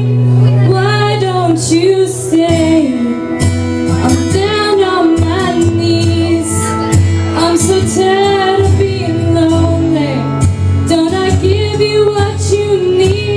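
A woman singing a slow country song over a karaoke backing track, her voice holding and bending long notes.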